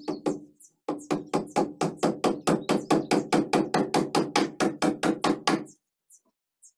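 Hammer blows on the wooden formwork: a couple of strikes, then a quick steady run of about twenty blows, roughly four a second, that stops about a second before the end. Birds chirp faintly in between.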